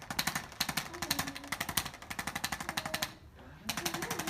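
Handheld chiropractic percussion instrument tapping rapidly and evenly on the muscles of the neck and upper back. It stops for about half a second around three seconds in, then starts again.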